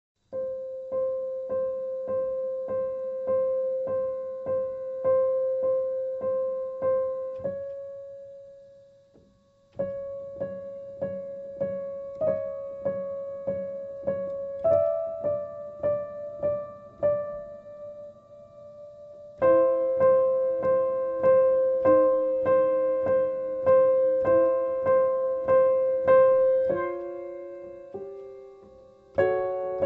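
Piano music: one note struck over and over about twice a second, broken by two short pauses, with lower notes joining in for the last third.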